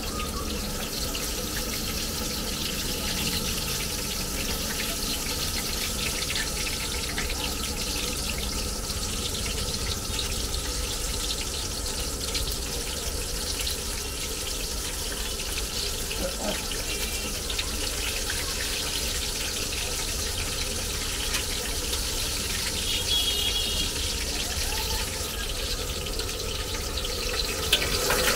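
Batter-coated garlic cloves deep-frying in a wok of hot oil: a steady sizzle and bubbling.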